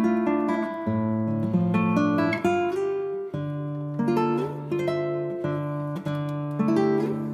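Background music on acoustic guitar: plucked notes and strummed chords changing every half-second or so.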